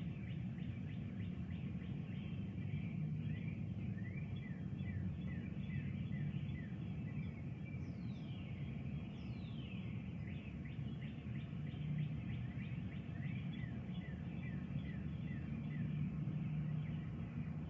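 Songbirds chirping: quick runs of short falling chirps, with two longer falling whistles about eight and nine and a half seconds in, over a steady low background rumble.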